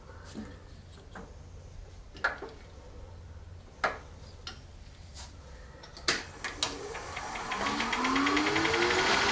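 A few scattered clicks and knocks over a low hum, then a wood lathe starts about six seconds in, its motor whine rising in pitch and getting louder as it spins up to speed.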